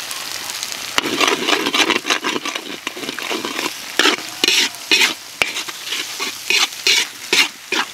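Metal spatula scraping and stirring in a large metal wok while an egg and ground meat fry and sizzle. From about a second in, the spatula strokes come as quick repeated scrapes over the frying.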